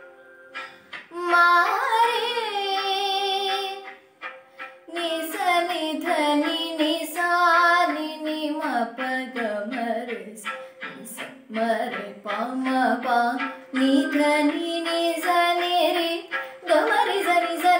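A young girl singing solo, with gliding pitches and wavering held notes. There are brief pauses between phrases about a second in and about four seconds in.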